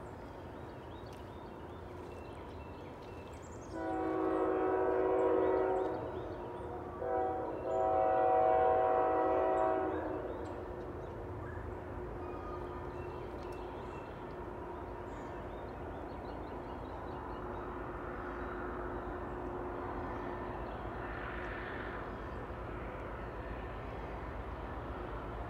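Distant multi-note air horn of a CSX freight train's lead locomotive (ET44AC 3386) sounding a long blast, a short one and another long one, the end of a grade-crossing signal. Afterwards the steady rumble of the approaching train builds slowly.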